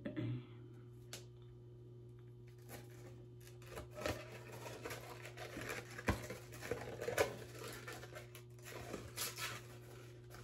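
Soft rustling and small clicks of a synthetic wig and its netted cap being handled, with one sharper knock about six seconds in. A steady low hum runs underneath.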